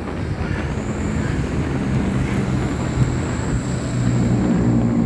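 Motorcycle engine running steadily while riding, with wind and road noise on the microphone and a faint steady high whine.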